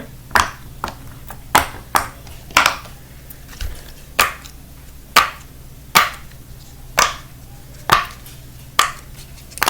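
Silicone pop-it fidget toy being pressed bubble by bubble from its loud side: about eleven sharp pops, roughly one a second.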